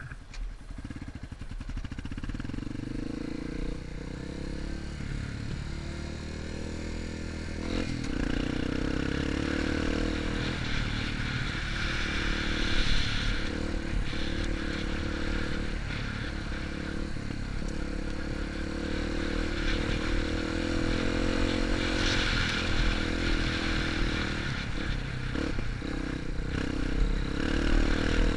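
Yamaha enduro motorcycle engine running under load on a climbing dirt trail. Its pitch rises over the first few seconds and then shifts up and down with the throttle, with a sudden step about eight seconds in.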